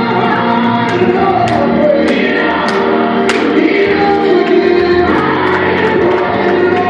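Gospel music: a choir singing held, swelling lines over a band. Sharp cymbal-like strikes fall about every half second in the first half.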